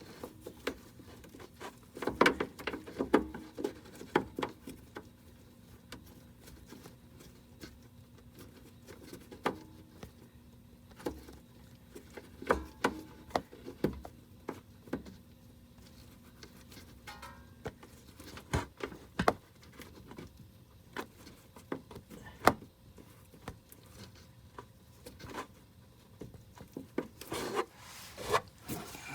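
Scattered clicks, knocks and rubbing from hands working under a car's front bumper, fitting a turn signal bulb socket back into its light housing, with a faint steady hum until a little past halfway.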